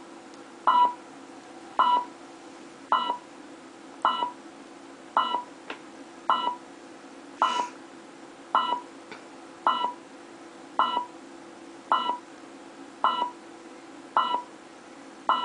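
Simulated alarm keypad beeping, one short mid-pitched beep about every second, evenly spaced: the exit-delay countdown after the system is armed.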